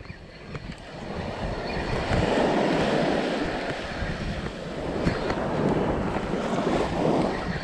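Small surf breaking and washing up a sandy beach, swelling about a second in and again around five seconds, with wind rumbling on the microphone.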